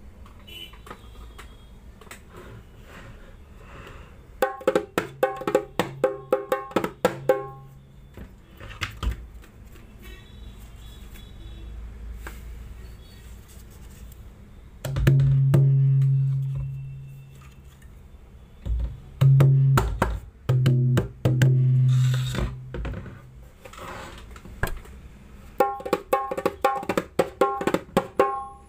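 Sheesham wood dholak with brass nut-bolt tuning, played by hand: quick runs of sharp, ringing strokes, and in the middle several deep strokes whose low tone rings on for a second or two.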